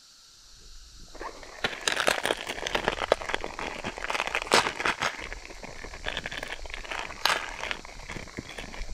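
Wood campfire crackling and popping under an aluminium mess tin of water being heated: dense, irregular sharp pops that start about a second in, with a few louder snaps.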